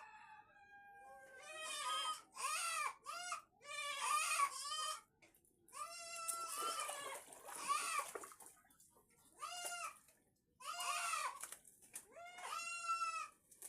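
A farm animal calling over and over: about a dozen short, nasal calls, each rising and falling in pitch, in irregular runs with brief pauses.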